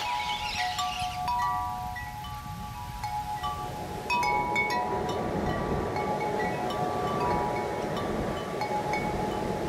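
Wind chimes ringing, scattered metallic notes sounding one after another, over a steady rushing noise that gets louder about four seconds in.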